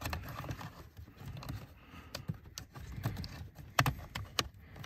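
Irregular plastic clicks, knocks and rustling as a remote-start jumper harness and its connectors are worked up into the car's under-dash wiring.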